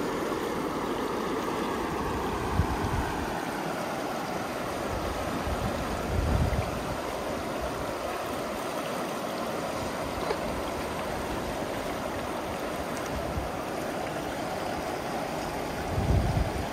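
Shallow river rushing steadily over a rocky, stony bed. A few brief low gusts of wind hit the microphone, about six seconds in and again near the end.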